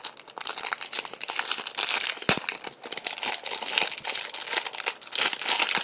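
Thin clear plastic wrap crinkling and tearing as it is pulled off a 2x2 speed cube by hand, with one sharper click a little over two seconds in.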